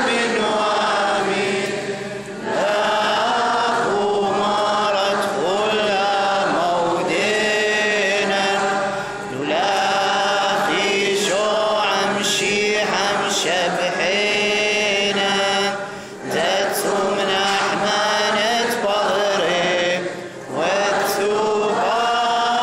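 A group of voices chanting a liturgical hymn together, in long sustained phrases broken by brief pauses every few seconds.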